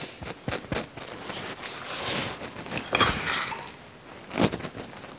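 A fork clicking and scraping against a fluted tart tin and a ceramic plate as sticky quince paste is spread into a pastry shell: a run of light clicks and scrapes, with sharper knocks about three and about four and a half seconds in.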